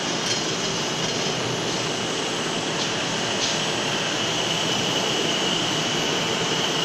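Electric gear motors with worm-gear reducers on a welding roller rotator running and turning the rollers, a steady mechanical hum with a constant high whine. Two light clicks come about three seconds in.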